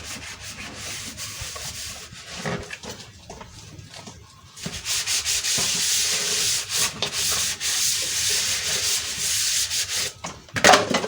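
Dishes being scrubbed by hand, a scratchy rubbing of a sponge or scourer on plates, fainter at first and louder and steadier from about five seconds in.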